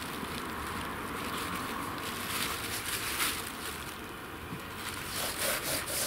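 Plastic bag rustling and crinkling as whole fish are handled and rubbed with salt inside it. The rustling is louder about two to three seconds in and again near the end.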